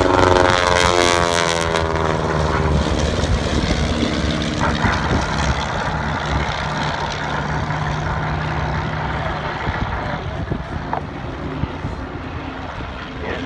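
Propeller engines of several First World War-style biplanes and a triplane flying low past. One passes close at the start, its engine note dropping in pitch as it goes by, and the engine sound then eases off gradually as the planes circle.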